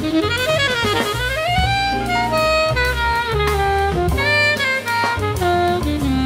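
Jazz saxophone playing a fast melodic line full of quick runs and slides over bass and a drum kit with cymbals.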